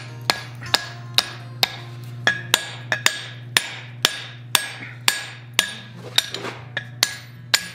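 Blacksmith's hand hammer striking a red-hot bar on an anvil in a steady rhythm, about two blows a second, each with a short metallic ring, as the forging head is shaped.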